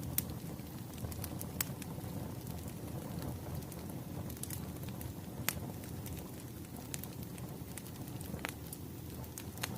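Wood fire crackling: irregular sharp pops and snaps over a low, steady rush of burning logs.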